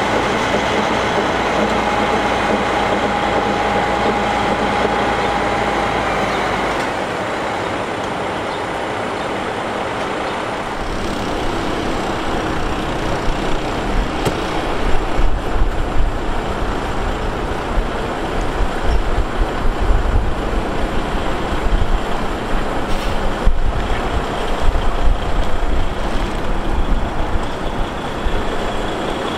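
Diesel engine of a heavy-haul semi tractor running, with steady tones for the first several seconds, then irregular low rumbling with uneven peaks for the rest.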